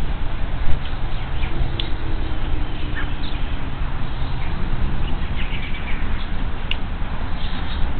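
A steady low rumble of wind on an outdoor nest-camera microphone, with a few short, thin bird chirps scattered over it.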